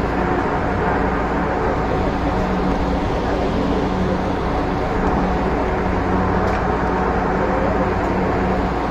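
Light rail train running steadily along the track, heard from inside the driver's cab: an even running noise with a constant hum.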